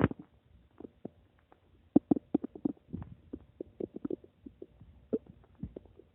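Human stomach gurgling and rumbling: an irregular run of short bubbling pops and squelches, thickest about two to three seconds in.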